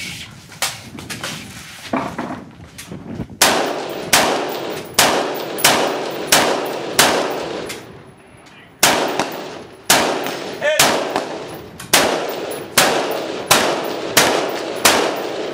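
Rifle fired in a rapid string of single shots, about three shots every two seconds, each with a short ringing tail; the string breaks briefly about eight seconds in, then carries on at the same pace. Fainter shots come in the first few seconds before the string starts.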